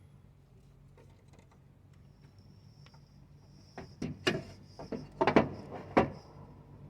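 A quick run of sharp metallic knocks and clunks, about a dozen over two seconds, starting about four seconds in: car parts and tools being handled during a starter motor swap.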